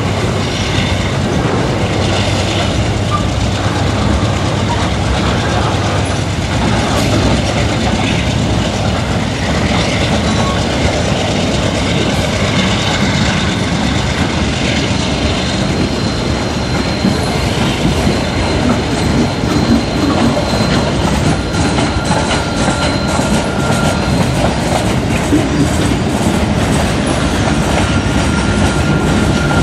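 CSX freight train of empty gondola cars rolling past, its steel wheels clattering on the rails over the steady drone of its GE diesel locomotives working. Faint wheel squeal comes in during the second half.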